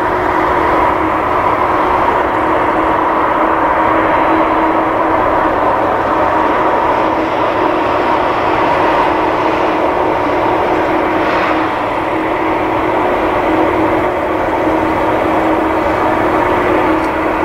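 Boeing 747-400 freighter's General Electric CF6-80C2 turbofans running at taxi power, a steady jet whine and rush with a held low hum.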